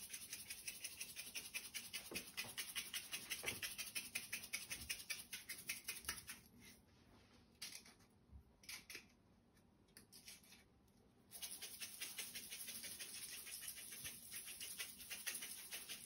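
A salt shaker being shaken over a tray of sliced onions, giving a fast, even rattle of salt several times a second. The shaking stops for a few seconds about six seconds in, then starts again.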